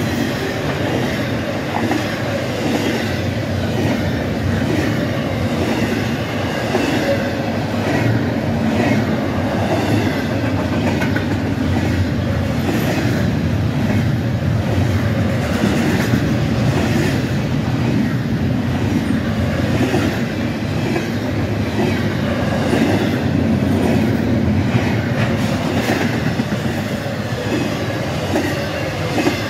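Double-stack intermodal freight train passing close at speed: a steady rumble of rolling cars with the clickety-clack of wheels over rail joints.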